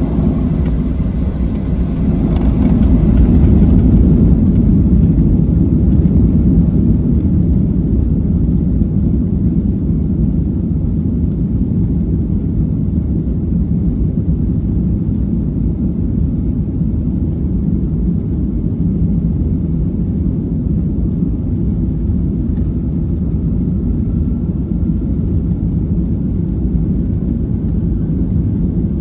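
Steady low rumble of a Boeing 737-700's CFM56-7B engines and airflow, heard from inside the passenger cabin. It is slightly louder in the first few seconds.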